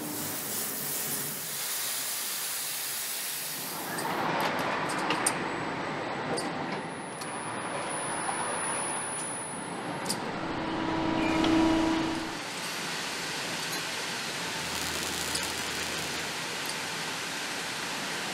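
Engine-plant machinery noise: a steady hiss for the first few seconds, then sharp clicks and knocks of machinery, and a brief steady hum about two-thirds of the way through, over a constant mechanical din.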